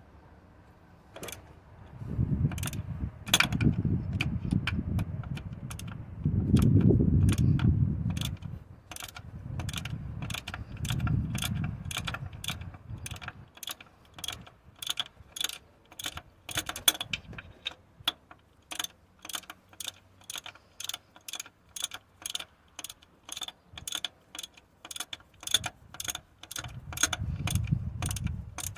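Hand ratchet clicking as a mounting bolt on the power steering pump is loosened and backed out, a steady run of sharp clicks about two to three a second. Several low rumbles come and go in the first half and again near the end.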